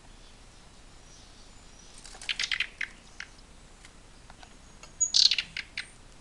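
Young nestlings chirping in a nest inside a bird cage: two bursts of rapid, high chirps, one about two seconds in and a louder one about five seconds in.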